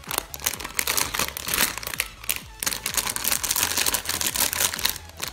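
Foil blind-bag packet crinkling densely as it is handled and opened by hand, a continuous rapid crackle.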